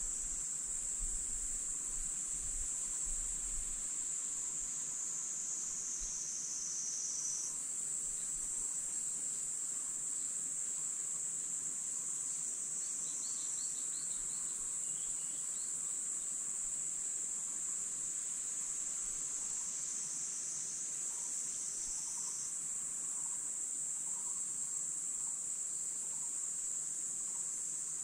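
Steady, high-pitched chorus of insects chirring in the forest, thickening twice, with a few faint bird chirps about halfway through.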